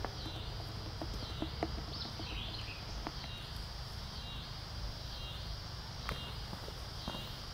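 Insects buzzing in a high, pulsing drone that swells and fades roughly once a second, over a low steady rumble. A short bird call sounds about two seconds in, and a few faint clicks come and go.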